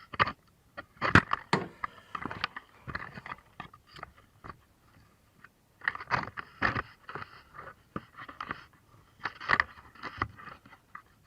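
Metal hand tools clinking and scraping against metal in an engine bay, in irregular clusters of short clicks separated by brief pauses.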